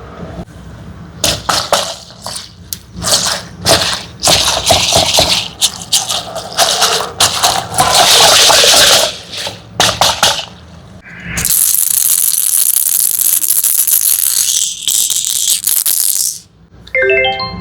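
Small hard candies pouring and clattering, a dense rattle of quick clicks, followed by a steady high hiss lasting several seconds. Near the end comes a quick rising run of chime-like notes.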